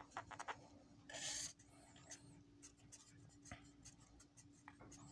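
Faint marker-pen writing: many quick short strokes as a word and small crosses are drawn, with one longer, louder stroke about a second in.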